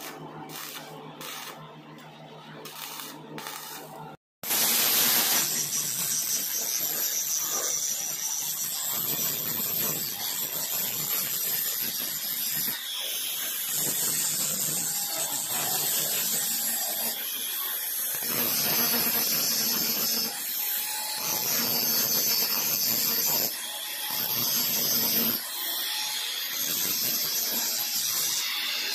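Stick-welding arc crackling over a low hum for the first four seconds. Then, after a brief break, an electric angle grinder grinds down the weld on a steel part clamped in a vise, running steadily with a few brief dips as the disc eases off the work.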